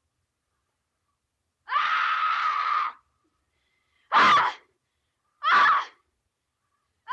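A child screaming in fright: one scream held for about a second, then two short, sharp screams a second or so apart.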